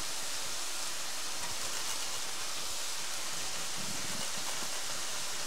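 Mushrooms, onions and wild boar ham bacon frying in butter in a pan: a steady, even sizzle.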